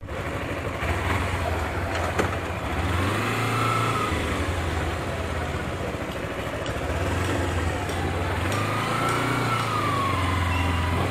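Kawasaki Ninja motorcycle engine running as the bike moves off, its pitch rising and falling twice as the throttle is opened and eased.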